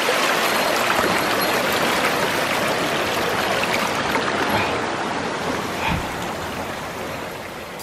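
A mountain stream rushes and splashes over rocks in a steady wash of water noise. It fades gradually over the last few seconds.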